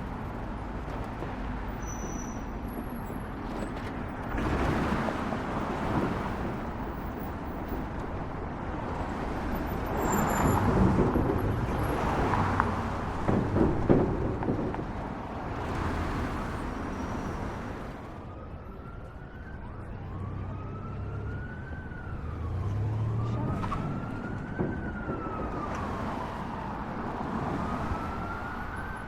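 City street traffic: a steady wash of road noise with several louder vehicle passes in the first half. About two-thirds of the way in, an emergency vehicle's siren starts wailing, slowly rising and falling about once every three seconds.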